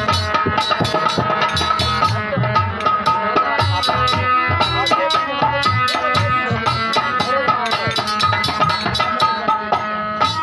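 Instrumental interlude of a bhajan: a hand drum plays a quick, steady rhythm under held melody notes, with no singing.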